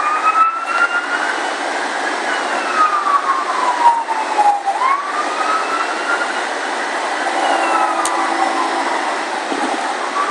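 A siren wailing, its pitch sliding slowly up and down about every five seconds, over a steady hiss of background noise.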